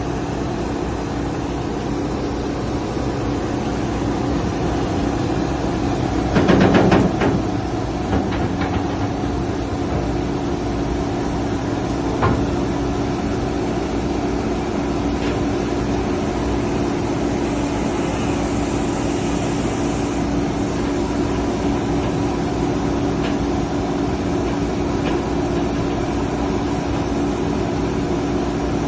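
Amphibious excavator's engine running steadily, with a loud rattle of knocks about six seconds in and a single sharp knock around twelve seconds.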